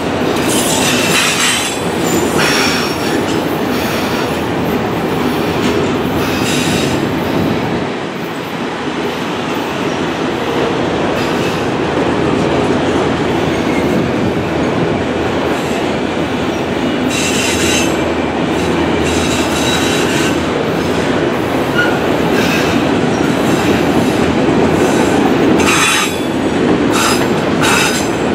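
Empty autorack freight cars rolling past on a curved track: a steady rumble and clatter of wheels on rail, broken several times by brief high-pitched screeches from the wheels.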